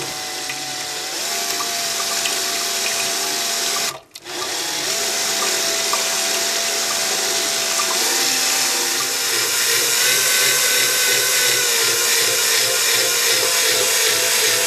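Electric drill spinning a scraper blade inside a metal sieve, pressing cooked tomato pulp through the mesh to strain it. The motor whines steadily, cuts out briefly about four seconds in, starts again, and runs at a higher pitch over the last few seconds.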